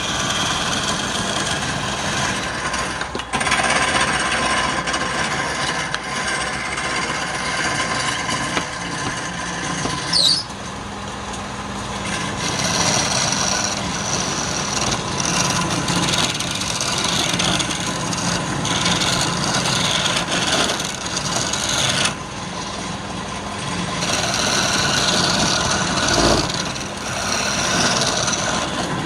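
Wood lathe running with a turning tool scraping and cutting the spinning wood over the steady hum of the motor; the cutting noise swells and drops back several times as the tool is worked, with a brief high squeal about a third of the way in.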